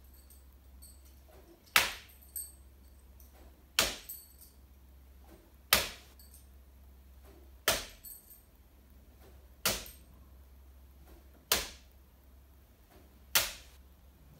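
Bo shuriken (steel throwing spikes) striking a wooden target board one after another: seven sharp impacts about two seconds apart, a smaller click following some of them.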